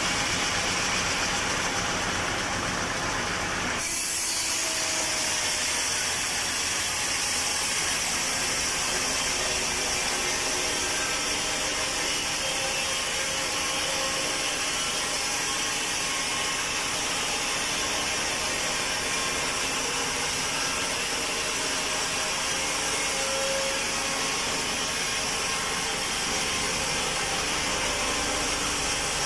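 Sawmill machinery running, then about four seconds in a saw blade enters teak wood and cuts steadily, a high-pitched hiss of the cut over the machine's drone.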